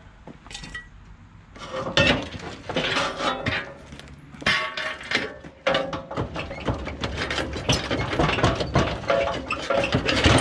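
Metal clanking, rattling and scraping as a steel hand truck is shoved and jostled under the back of a VW Beetle during engine removal. It starts about a second and a half in as a dense run of uneven knocks and rattles.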